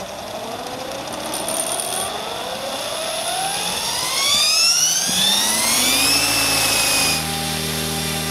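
Radio-controlled model helicopter's motor and rotor spooling up: a whine that rises steadily in pitch and grows louder for about six seconds, then holds at a steady pitch as the rotor reaches about 2,400 rpm.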